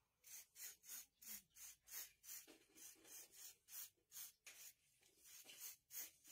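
Aerosol cleaner spray can fired in short, quick hissing bursts, about three a second, onto a motorcycle's plastic fuel pump and filter assembly. It is cleaning the fuel pump assembly.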